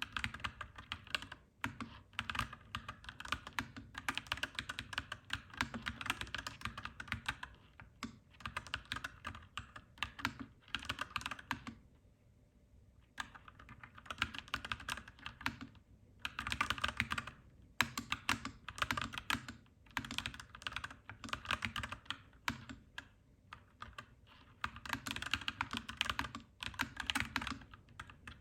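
Clacky mechanical keyboard being typed on in fast, steady runs of keystrokes, with a short pause about twelve seconds in.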